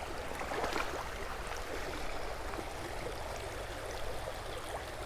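Creek water rushing steadily over shallow rapids, an even hiss of running water.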